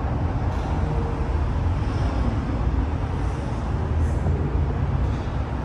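Steady street traffic noise, mostly a continuous low rumble.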